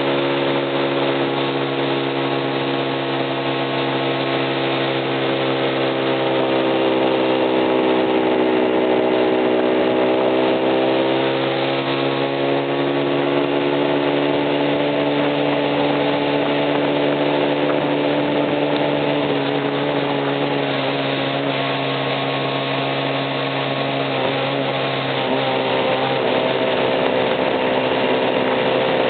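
Honda CB50's small single-cylinder four-stroke engine running steadily, its speed drifting up a little and easing back twice. The owner says this engine is making an abnormal noise.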